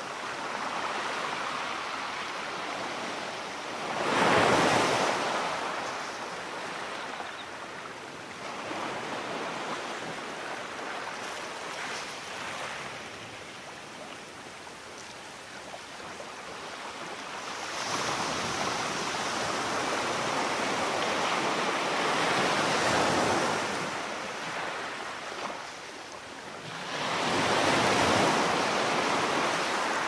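Rough sea surf breaking and washing against a rocky shore. It surges loudly about four seconds in, again for several seconds past the middle, and near the end.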